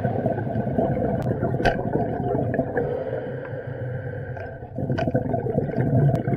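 Muffled underwater noise picked up through a camera housing on a night dive: a low, rough rumble with a few sharp clicks. It dips briefly about four seconds in, then comes back.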